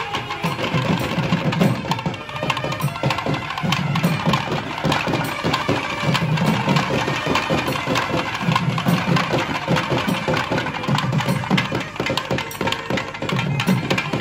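Several thavil barrel drums played together in a fast, dense rhythm, with heavy deep strokes coming in clusters about every two seconds.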